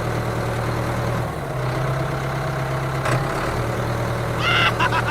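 Engine idling steadily with a low hum. A short high-pitched call sounds near the end.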